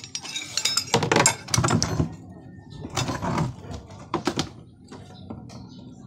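Metal clinks, knocks and scraping from handling the washing machine's motor, pulley and mount with hand tools while raising the motor to align its pulley with the gearbox pulley. The sound comes in three bursts: a long one in the first two seconds, then shorter ones about three and four seconds in.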